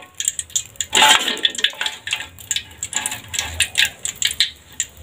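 Metal spatula scraping and clinking against a wok as a noodle-and-egg omelet fries, with oil sizzling underneath; the loudest scrape comes about a second in.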